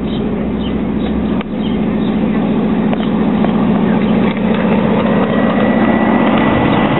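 Ride-on miniature model of an InterCity 125 locomotive running along the track and drawing closer, its engine going steadily with a fast pulsing beat that grows louder. A few sharp clicks come from the train.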